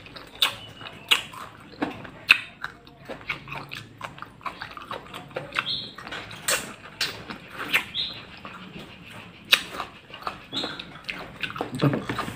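Close-miked mouth sounds of a person eating corn on the cob from sayur asem: wet smacking, sucking and chewing as the kernels are gnawed off, with sharp clicks throughout and three short high squeaks from sucking.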